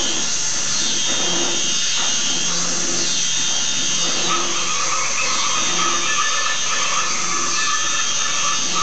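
Harsh experimental noise music: a dense, drill-like grinding texture over a low pulsing figure that repeats about one and a half times a second, with a high steady tone entering about four seconds in.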